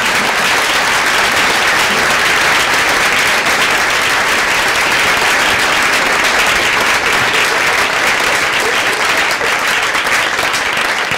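Audience applauding: many people clapping steadily, tapering off near the end.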